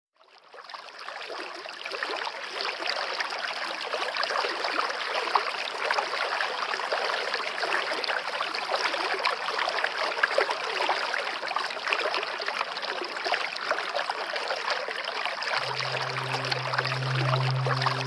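Running water, a steady stream-like rush that fades in over the first second. A low held musical note comes in near the end.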